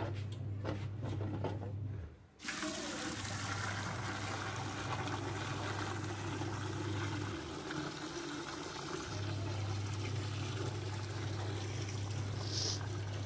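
Water gushing from a hose into a steel bucket, splashing and churning as the bucket fills. The sound dips briefly about two seconds in, then carries on steadily. A low hum runs underneath and drops out twice.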